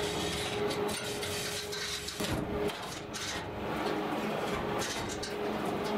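Manual chain hoist being hauled by its hand chain, lifting an engine: the chain rattles and clinks through the block in irregular runs.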